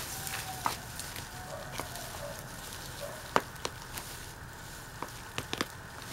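Hand trowel digging in a potted plant's soil: scattered sharp clicks and scrapes as the blade works through the dirt, the loudest a little past halfway and a quick cluster of several near the end.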